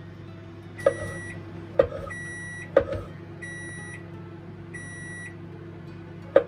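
A kitchen appliance beeping four times, evenly spaced: the signal that the toast is done. A few sharp knocks sound in between and near the end.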